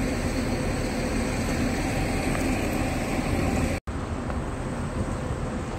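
Steady outdoor street noise of road traffic, with no pitched engine standing out. It cuts out completely for a split second just under four seconds in, then resumes slightly duller.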